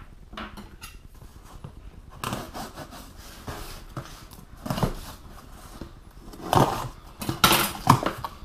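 A knife slitting the packing tape on a small cardboard box, then the flaps being pulled open, with cardboard scraping and rustling. It starts about two seconds in, after a few faint clicks, and ends with several sharp knocks and crinkles from the flaps and paper packing.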